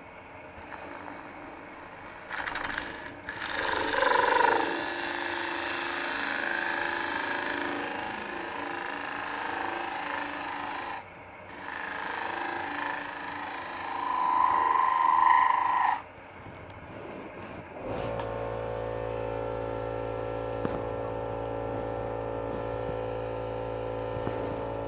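Robert Sorby ring tool cutting inside a spinning end grain bowl on a wood lathe, scraping and shaving the wood in two long cuts with a short break between. After that there is a quieter pause, then a steady hum.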